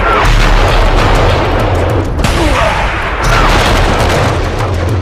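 Loud, dense noise sound effects of a blast or gunfire kind in two long bursts, each about two seconds, with a short break between them, over a low rumbling bass.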